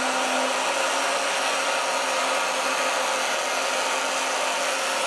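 A small electric motor running steadily, giving an even whir over a constant low hum.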